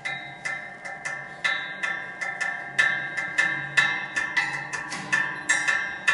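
Metal sound sculpture in the Baschet tradition struck with sticks in a quick, uneven rhythm of about three to four strokes a second. Each stroke is a sharp hit followed by bright ringing pitches, with a few louder accented strokes in the middle.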